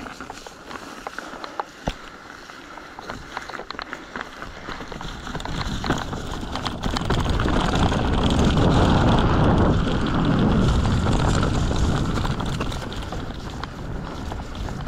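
Light ticks and rattles from an Orbea Occam full-suspension mountain bike riding downhill over rough ground, then wind noise on the microphone from the descent's speed. The wind builds from about five seconds in, is loudest past the middle, and eases toward the end.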